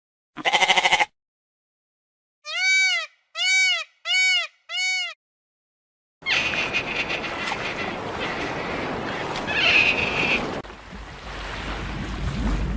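Animal bleating: one short bleat, then four short calls that each rise and fall in pitch, followed by a longer stretch of noisy farm-animal sound.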